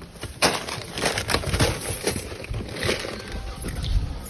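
Irregular rustling with a string of soft knocks and bumps.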